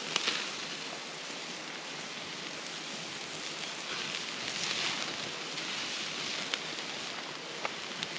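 Burger patties sizzling on a metal grill grate over a crackling open campfire, a steady hiss with a few sharp pops.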